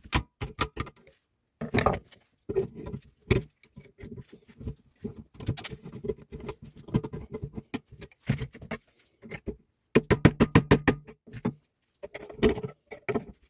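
Irregular metallic clicks, taps and scraping as a screwdriver and pliers work parts loose on a Bosch car starter motor clamped in a steel vise. About ten seconds in comes a quick run of eight or nine clicks in a row.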